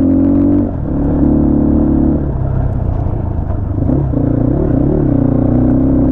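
A 250 cc motorcycle engine running under load on an off-road trail. Its note shifts with the throttle, dropping twice early on and rising and falling several times around the middle.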